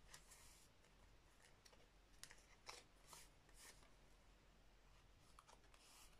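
Near silence with faint, brief rustles and light ticks of a paper card and a photocard being handled over plastic binder sleeves.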